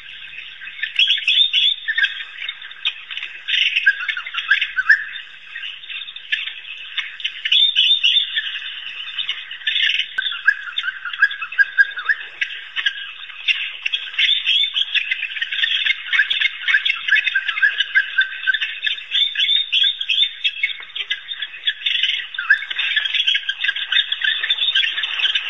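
A pack of African wild dogs twittering: many overlapping high, bird-like chirps and squeaks, the social calls the pack makes when clustered together in a greeting.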